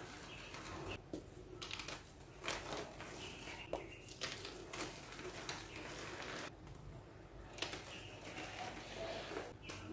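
Blocks of dyed gym chalk crumbled and crushed in the hands: repeated dry crunches and crackles at irregular intervals.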